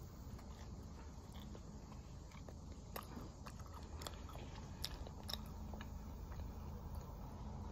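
A person biting into and chewing toasted food close to the microphone, with scattered wet mouth clicks and smacks, over a steady low background rumble.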